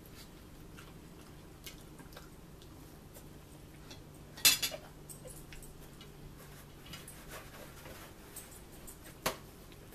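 Tableware sounds of a meal: faint taps and clinks of a fork on a plate, a louder clatter of dishes about four and a half seconds in, and one sharp click near the end.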